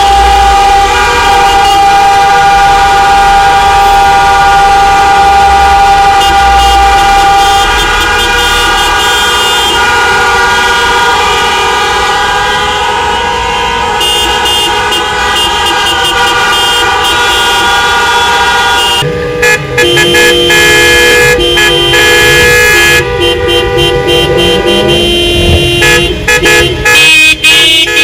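A protest convoy's car horns honking all at once: many horns of different pitches sounding together in a continuous, overlapping din. From about two-thirds of the way in, the horns come in choppier blasts with short gaps between them.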